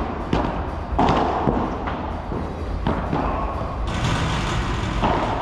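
A padel rally: a string of sharp ball hits, racket strokes and bounces, about every half second to a second, with a short stretch of hiss near the end.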